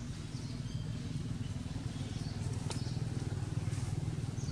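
A steady low engine drone, with one faint click a little over halfway through.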